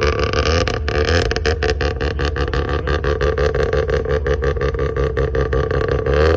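Mazda RX-7's rotary engine idling through its exhaust with an uneven, choppy "brap brap" beat of rapid irregular pulses.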